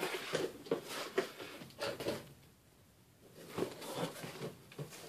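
Cardboard shipping box being handled and its flaps pulled open: a string of irregular knocks and scrapes of cardboard, with a short lull in the middle.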